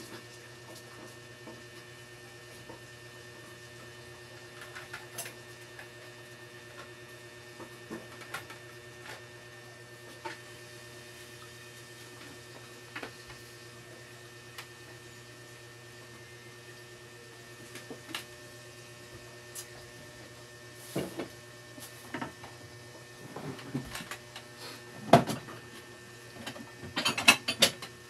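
Steady electrical hum with scattered faint clicks; in the last several seconds, a run of irregular knocks and clatter.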